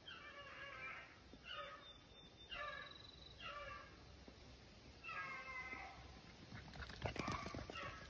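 Beagles baying faintly on a rabbit's track: about six drawn-out calls, each under a second. Near the end, a gust of wind rumbles on the microphone.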